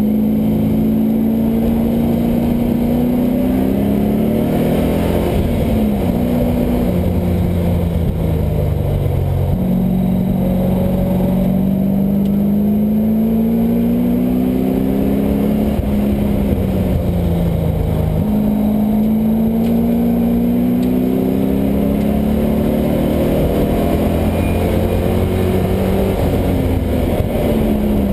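LS1 V8 engine in a swapped Mazda Miata at speed on track. Its pitch climbs steadily under long pulls and falls away off the throttle, about four times over.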